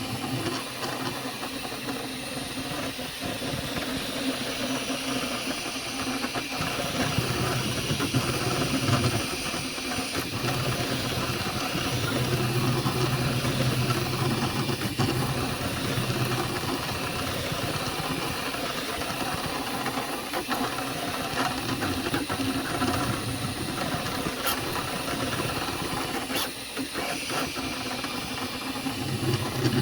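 Flashforge Adventurer 5M 3D printer running: a steady fan hiss, with a stepper-motor hum that swells and drops away as the print head moves.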